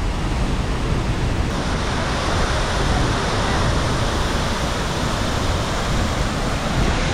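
A large waterfall, about 37 metres high, rushing steadily: a dense, even wash of falling water. The hiss grows a little brighter about a second and a half in.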